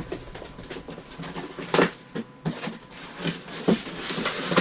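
Hands handling the packaging and parts of an unboxed 3D printer kit: rustling, with several sharp knocks and clacks as pieces are moved and set down, the loudest about two seconds in.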